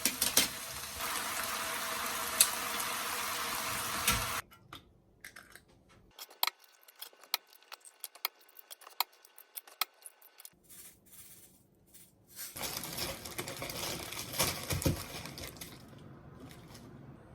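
Food sizzling in a pan with sharp spatula clicks, cutting off suddenly about four seconds in. Scattered light taps and clinks of kitchen utensils and dishes follow, then another stretch of steady hiss with clinks before it fades.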